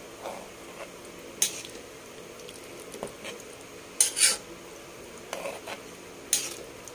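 A spatula stirs boiled chickpeas in masala gravy in a metal pan, scraping against the pan with sharp strokes about a second and a half in, at four seconds (a double scrape), and near the end. A faint sizzle runs underneath.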